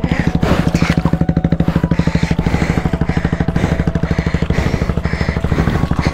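Motorcycle engine idling close by, a steady, rapid pulsing beat that does not change.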